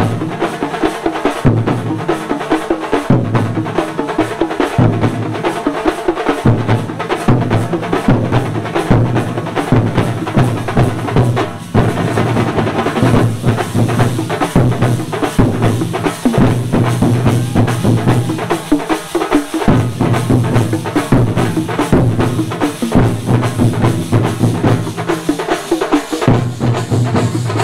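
A Kerala chenda drum ensemble playing a fast, dense rhythm: sharp stick strokes over a deep, steady drum pulse, which drops out briefly a few times.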